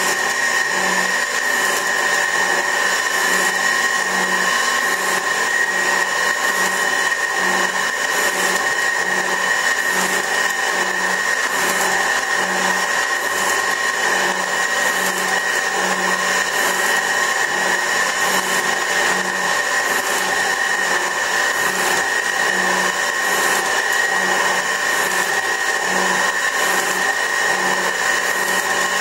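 24-inch Värnamo metal shaper running and cutting, a steady machine whine with a regular low beat about once a second as the ram strokes back and forth over the face of a pedestal-grinder tool rest.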